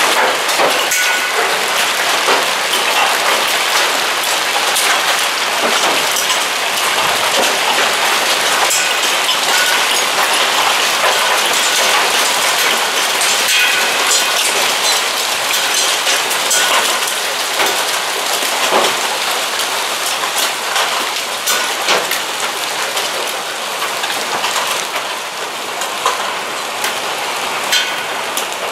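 Hailstorm: hailstones pelting down in a loud, dense patter of countless sharp ticks. It eases a little in the last third.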